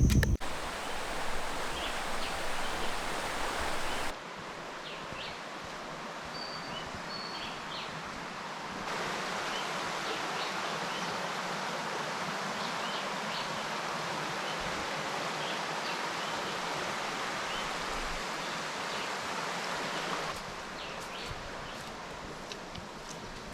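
Rainforest ambience: a steady rush of water, like a stream or falling rain, with faint scattered chirps and a couple of brief whistled notes. The level shifts abruptly a few times.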